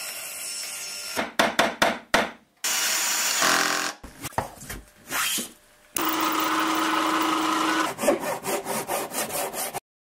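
A spliced sequence of woodworking sounds: bursts of quick strokes of a hand tool on wood alternate with short steady runs of a power tool. It cuts off abruptly just before the end.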